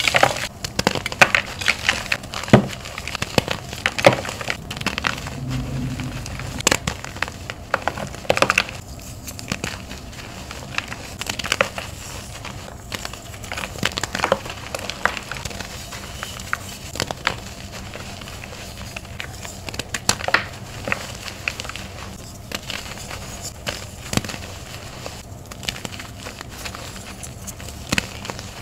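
Bare hands crushing and crumbling blocks of gym chalk, white and pink reformed chalk: irregular crunching and crackling with a soft powdery rustle, denser and louder in the first several seconds, then sparser crunches.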